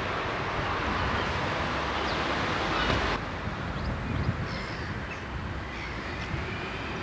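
Outdoor ambience of wind rumbling on the microphone, with short bird calls in the second half.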